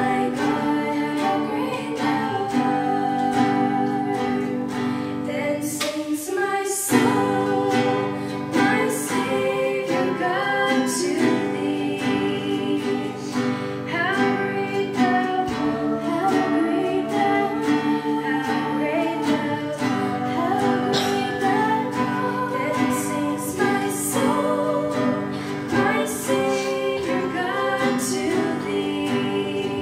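Background music: a song with singing over guitar accompaniment.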